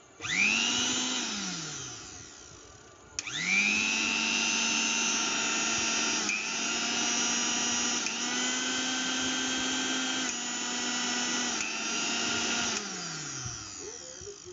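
Electric mixer grinder running empty with no jar fitted: the motor whirs up briefly and coasts down, then starts again and runs steadily, its pitch stepping up and down several times as the speed knob is turned, before it is switched off and spins down to a stop.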